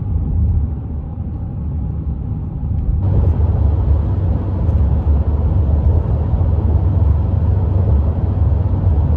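Steady low rumble of a moving road vehicle, which grows louder about three seconds in.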